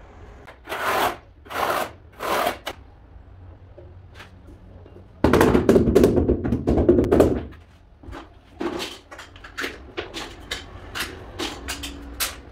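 Hand tiling work on ceramic floor tiles: three short scraping strokes about a second in, a louder, longer scrape starting about five seconds in, then a run of quick light clicks and taps.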